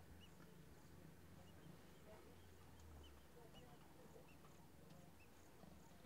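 Near silence: faint outdoor ambience with a low steady hum, and short high chirps repeating every half second or so.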